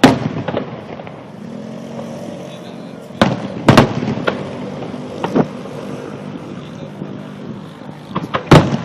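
Fireworks shells bursting: a loud bang at the start, two more close together about three and a half seconds in, lighter ones around four and five seconds, and another loud bang near the end followed by a run of small crackling pops.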